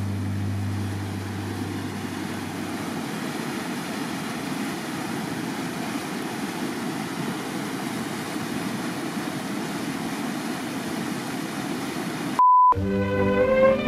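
Whitewater rapids rushing steadily over a rock ledge, an even hiss of running water. Near the end, a short, loud, single-pitched beep cuts in.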